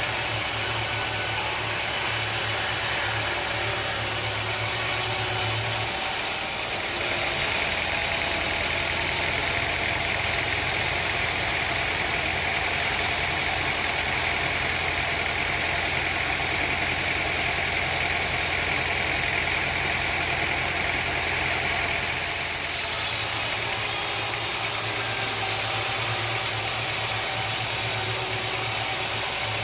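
Sawmill saw and its drive running steadily. From about seven seconds in until about twenty-two seconds a higher whine joins the hum as the saw cuts through a redwood log, then the sound falls back to the plain running hum.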